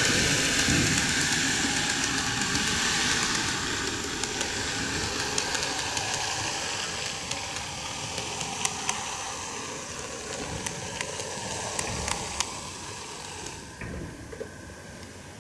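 N-gauge model train (Greenmax Kintetsu 12410 series four-car set) running on track: a steady hiss with scattered sharp clicks of wheels over rail joints. Near the end the train comes to a stop and the hiss drops away.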